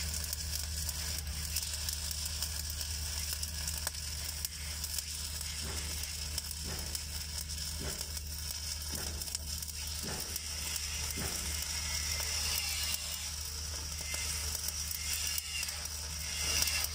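Stick (SMAW) welding arc burning steadily on steel pipe: a continuous crackling hiss, with a steady low hum underneath.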